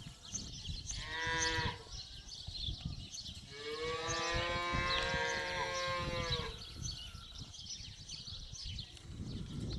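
Cow mooing twice: a short call about a second in, then a long drawn-out moo about three seconds long.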